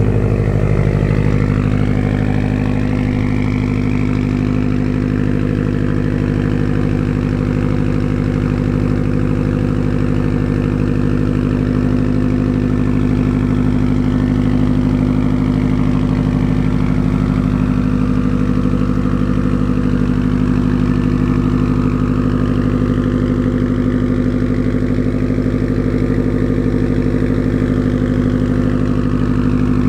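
2015 Subaru STI's turbocharged flat-four boxer engine idling steadily while it warms up after a cold start it was slow to catch on.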